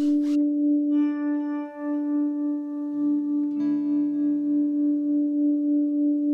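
Background music: a steady held tone with a gently wavering level, with other notes entering about a second in and changing at about three and a half seconds.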